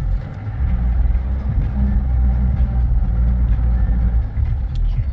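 A vehicle's engine and road rumble, heard from on board while it drives over a rough, bumpy road, with a few small knocks and rattles.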